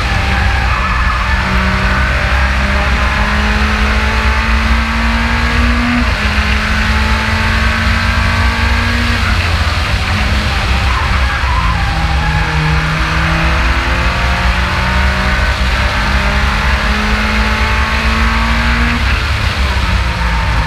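Race car at speed heard from onboard: a steady, loud rumble of engine, wind and road noise, with music playing underneath.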